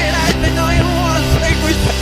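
Hard rock recording: distorted electric guitar with wavering, bending notes over bass and drums.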